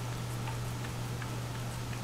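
A cat licking a hard-candy lollipop, its tongue making small irregular wet clicks on the candy, over a steady low hum.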